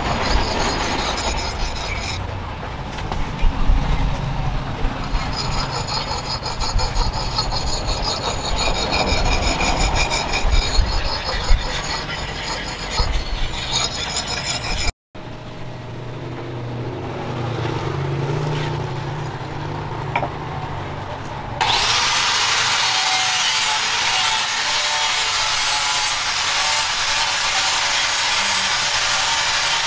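A hand-forged leaf-spring steel axe blade being sharpened by hand on a whetstone: repeated irregular scraping strokes of steel on stone. Near the end the scraping gives way to a steady even hiss.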